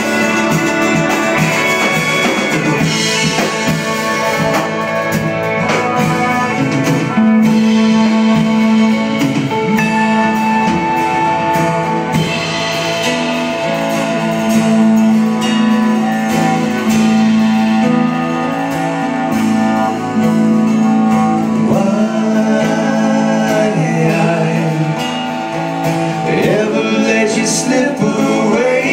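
Live band playing a country-rock song: electric and acoustic guitars, bowed cello and drums, with a man singing.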